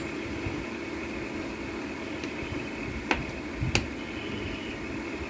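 A small screw being fitted by hand into a washing machine's plastic control panel: two sharp clicks about two-thirds of a second apart, about three seconds in, over a steady background hum.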